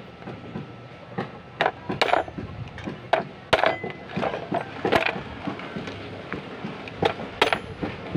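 Hammer striking a screwdriver held against the metal housing of a disassembled vehicle starter motor: a series of sharp metallic knocks at irregular intervals, one ringing briefly near the middle.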